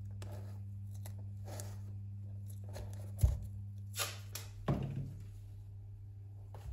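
Hands working a leather loafer and masking tape on a workbench: scattered light knocks and rustles, with one thump a little over three seconds in and a few sharper handling noises soon after, over a steady low hum.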